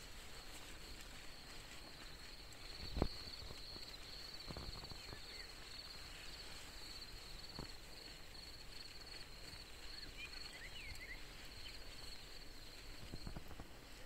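A steady, high-pitched insect trill that stops shortly before the end, with a few short bird chirps around ten seconds in and a single sharp thump about three seconds in.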